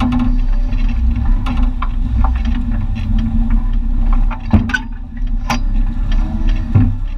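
Jeep Comanche pickup heard from inside the cab on an off-road trail: steady low engine rumble, with scattered knocks and rattles as the truck moves over rough ground.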